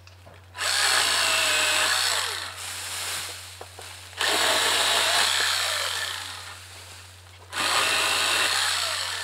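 Greenworks 40V 8-inch cordless electric pole saw running in three bursts as its chain cuts into palm fronds. Each burst starts sharply and winds down after a couple of seconds as the trigger is released.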